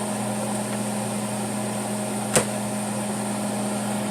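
Steady electric hum of an air fryer oven's fan and motor running, with one sharp click about two and a half seconds in.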